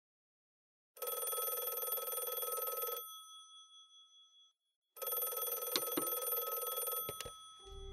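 Telephone bell ringing twice, each ring about two seconds long, the first fading away after it stops. A couple of sharp clicks come near the end as the call is picked up.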